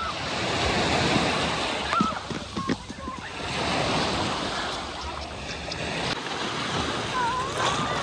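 Ocean surf breaking and washing up the shore, the rush of water swelling twice, about a second in and again about four seconds in.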